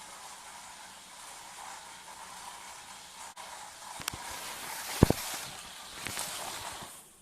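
Toy remote-control stunt car running, its small electric motor and wheels making a steady hiss with a faint whine, then sharp knocks about four, five and six seconds in, the one near five seconds the loudest.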